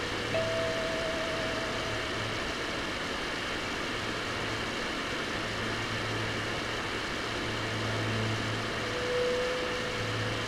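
Ambient electric guitar drone: a steady hissing wash over a low hum that comes and goes. Long sustained notes sound over it, a wavering one near the start and a lower one near the end.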